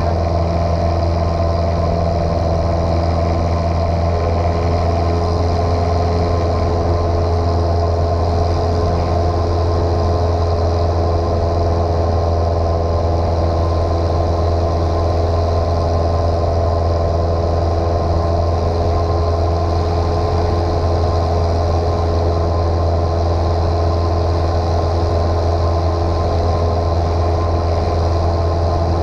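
Single-engine light airplane's piston engine and propeller droning steadily at cruise power, heard from inside the cockpit.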